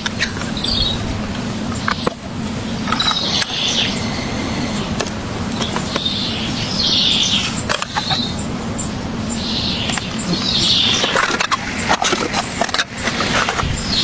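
Birds chirping in short high calls every second or two, over a steady low background hum, with scattered sharp clicks.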